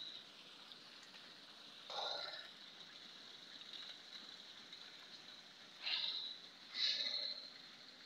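Water pouring from the slot spouts of a wall fountain into its basin, a steady, faint splashing. It is broken by a few short, louder noises about two, six and seven seconds in.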